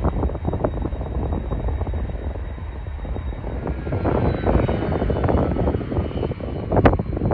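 Jet airliner engines rumbling with a ragged crackle, and one short louder burst near the end.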